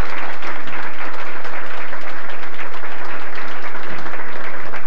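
Audience applauding: many hands clapping together in a dense, even clatter.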